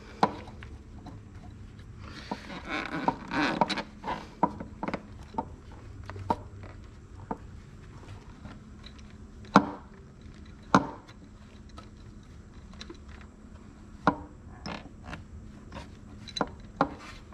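Hands working a secondary air combi valve and its hoses into place in a car's engine bay: scattered sharp clicks and knocks of parts and fasteners, with a stretch of rustling and scraping about two to four seconds in.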